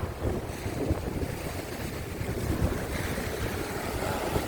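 Sea waves surging and washing over shore rocks in rough swell, with strong wind buffeting the microphone as a low rumble.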